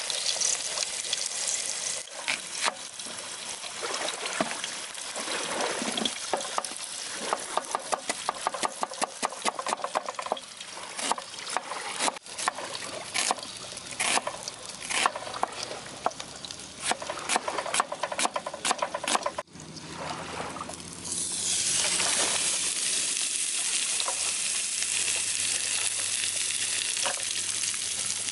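A beef burger patty sizzling and crackling in an oiled pan, with a knife chopping an onion on a wooden board in quick runs of taps. About two-thirds of the way through, a louder, steady hiss takes over as the sliced onions fry in the pan.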